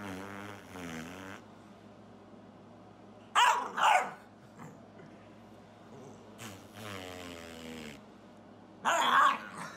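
A dog growling and barking: low, wavering growls with two short, loud barks about three and a half seconds in and another loud one near the end.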